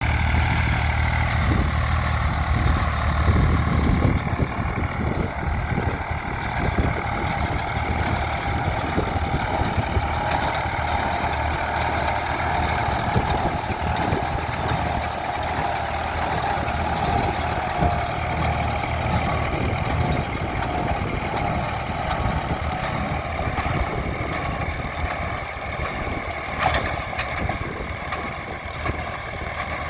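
Nuffield 342 tractor engine running steadily while pulling an International B47 baler at work. The deep low end is heavier for the first few seconds.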